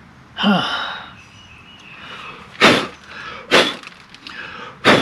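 A short squeak with a falling pitch, then three sharp snaps about a second apart, from handling the Silverado's interior door handle parts.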